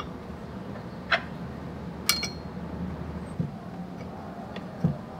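Light metal clicks and clinks as a cabinet scraper plane is put back together, its steel blade seated in the body and a brass thumbscrew set in place. About five separate clicks, the loudest about two seconds in with a short ring.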